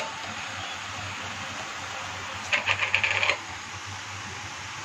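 Greens cooking in an iron kadhai with a soft steady hiss. About two and a half seconds in, a quick rattle of small clicks lasts about a second, with salt being added to the pan.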